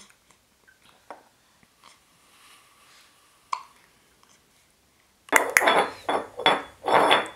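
Faint scattered clicks, then about five seconds in a sudden loud run of rapid clinking, clattering knocks.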